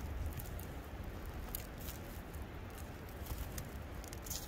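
Campfire crackling, with scattered small pops and ticks, more of them in the second half, over a steady low rumble.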